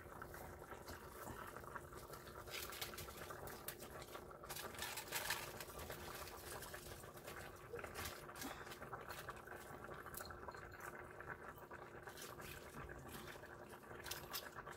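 Pot of fish broth simmering faintly on the stove, with soft rustles as handfuls of chopped cabbage are dropped into it, over a faint steady hum.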